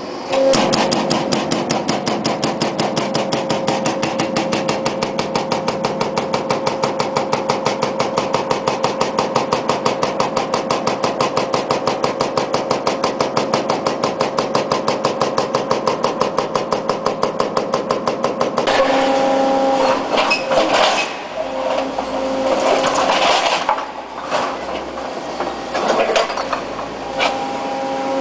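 Brokk 180 demolition robot's hydraulic breaker hammering rapidly, about eight blows a second, over a steady hum from the machine. About 19 seconds in the hammering stops and gives way to irregular scraping and knocking.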